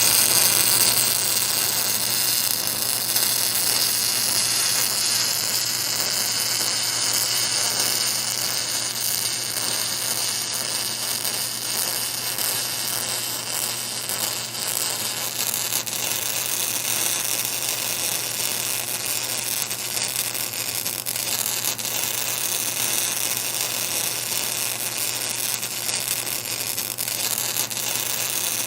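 Welding arc hissing and buzzing steadily on a pipe joint, with a constant low electrical hum underneath.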